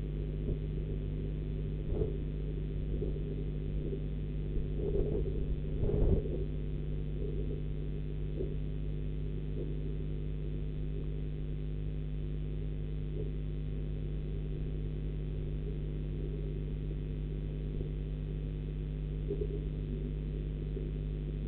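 Steady low hum picked up by a nest-box camera's microphone, with a few dull knocks in the first six seconds.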